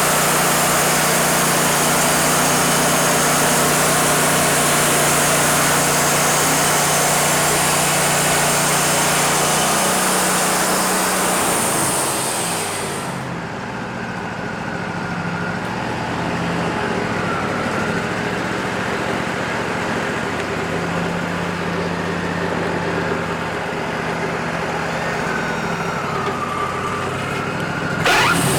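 Wood-Mizer LT40 band sawmill running: the band blade cutting through a cedar log with the sawmill's engine running under it. About 13 seconds in, the cutting noise stops abruptly and the engine runs on at a steady hum, with a few faint wavering whines.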